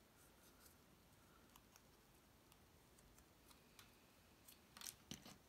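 Near silence, with faint ticks and rustles of cardstock being handled as mini brads are pushed through the paper pieces, and a brief louder rustle of paper near the end.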